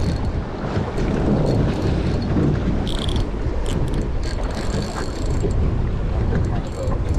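Strong wind buffeting the microphone, a steady low rumbling rush, with a few faint brief clicks about three and four seconds in.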